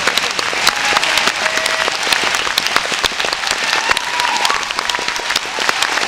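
Audience and performers applauding in a hall: a dense, steady patter of many handclaps.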